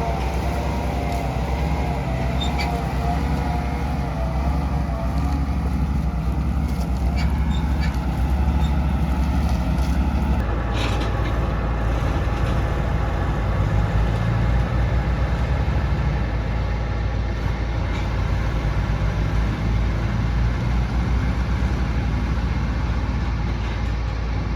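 John Deere 6600 combine running steadily while harvesting corn, its engine and threshing machinery giving a continuous drone. The drone shifts abruptly about ten seconds in, with a few faint clicks along the way.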